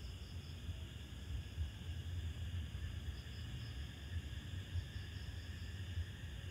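Night insects chirping in a steady chorus, with short pulsed trills at the start, about three seconds in and about five seconds in, over a low steady rumble.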